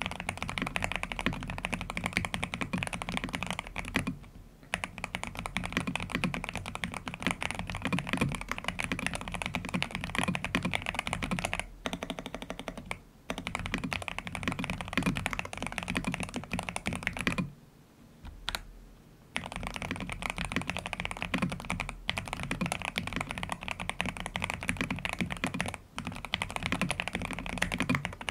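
Fast, continuous typing on an Angry Miao Cyberboard Terminal mechanical keyboard fitted with Aqua King switches and a three-layer tape mod: a dense run of keystrokes with a few short pauses, the longest about two seconds long midway through.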